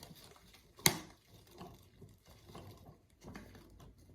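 Small handling sounds of containers and utensils on a tabletop while slime ingredients are poured: one sharp tap or click about a second in, then faint scattered taps and rustles.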